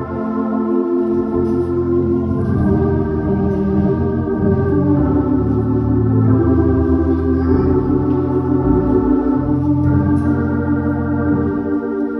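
Church organ playing slow, held chords that change every second or two over a sustained bass line.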